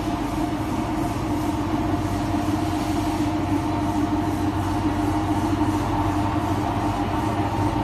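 HFM-2000 ball fiber machine running, rolling hollow fiber into fiber balls: a steady mechanical drone with a constant low hum and several fixed tones, even in level throughout.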